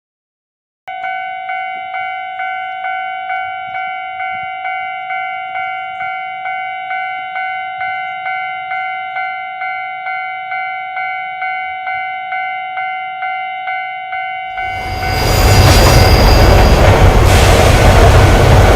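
Plarail toy railroad crossing's electronic warning bell dinging about twice a second, starting about a second in. Near the end a much louder rushing train-passing noise swells up and covers the bell for about four seconds.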